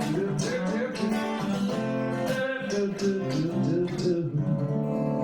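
Acoustic guitar playing a picked and strummed instrumental passage with sliding notes, settling about four seconds in onto a chord left ringing.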